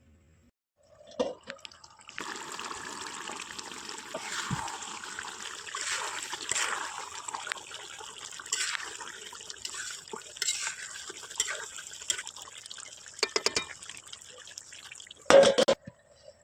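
Water running or trickling steadily for about fourteen seconds, with a knock shortly before it starts and a brief, loud clatter just before it stops.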